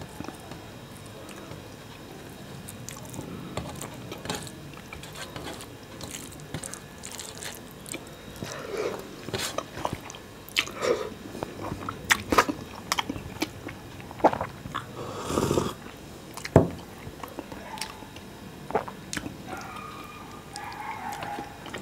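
Close-miked mouth sounds of a person eating rice and fish curry by hand: chewing with many short wet lip-smacks and clicks, coming thicker from about eight seconds in. A brief louder rush of noise comes about fifteen seconds in.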